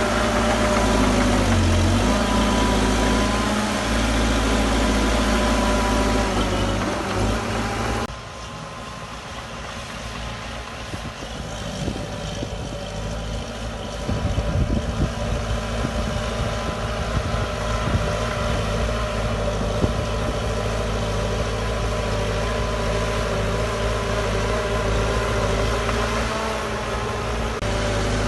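Diesel engines of heavy earthmoving machines running steadily. About eight seconds in the sound changes suddenly and becomes quieter, then grows louder again some six seconds later.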